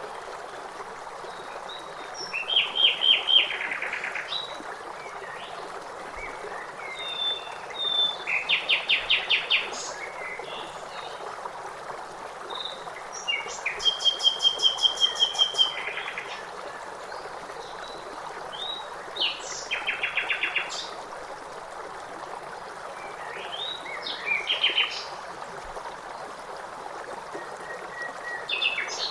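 Songbirds singing short, rapid trilled phrases every five or six seconds, with scattered chirps in between, over the steady rush of flowing water.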